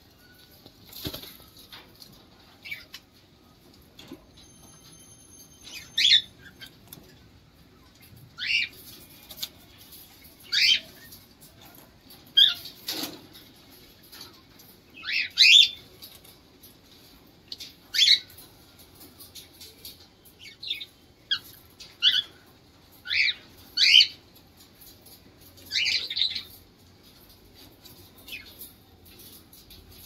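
Cockatiels in an aviary giving short, shrill calls, about one every one to two seconds, with the flutter of wings as a bird flies about the cage.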